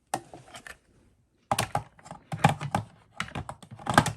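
Hard plastic parts of a Bissell Pet Hair Eraser Turbo upright vacuum clicking and knocking as they are handled and fitted together, in several quick clusters of clicks.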